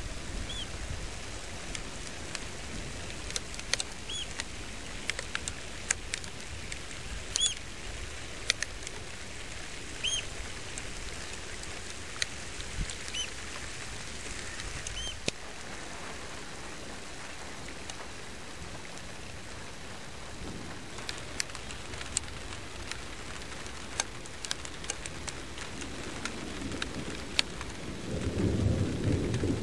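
Steady wind and rain noise with scattered sharp clicks, while a bird gives a short chirp every few seconds through the first half. Near the end a low thunder rumble swells up.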